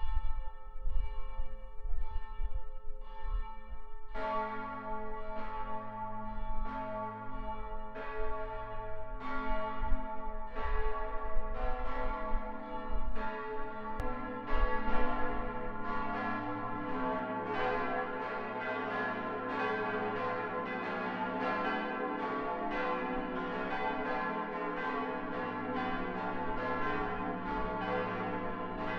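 Church bells ringing. A single bell tolls steadily at first, then a deeper bell joins about four seconds in, and the overlapping strikes grow denser into a full peal.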